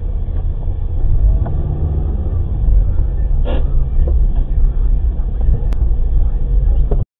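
Steady low rumble of a car's engine and tyres on the road, heard from inside the cabin, with a few faint clicks. It cuts off suddenly near the end.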